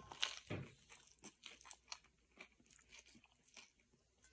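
A person chewing a mouthful of steak wrap filled with crispy fried onions: a string of faint, irregular crunches, the strongest just after the first bite.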